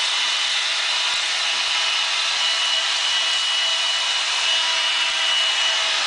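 Handheld vacuum cleaner running steadily: a high whine over a rushing hiss as it sucks up spilled birdseed from the bottom of the bird cage.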